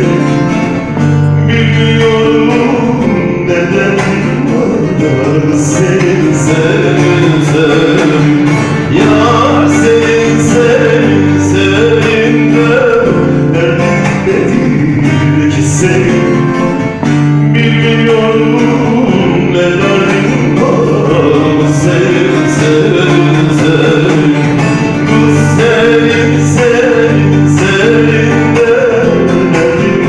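A man singing a Turkish folk song live into a microphone, accompanying himself on a plucked lute.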